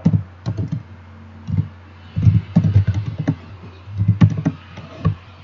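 Typing on a computer keyboard: several quick bursts of keystrokes with short pauses between them.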